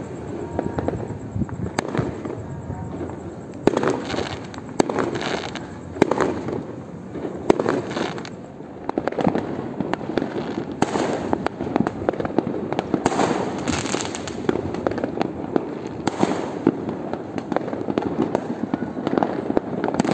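Fireworks and firecrackers going off all around: a continuous crackle of many overlapping bursts, with sharper, louder bangs every second or so.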